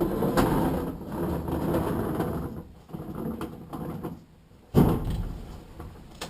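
Stacked washer-dryer unit being tipped forward, its cabinet shifting and rattling, with a sudden heavy thud about three-quarters of the way through.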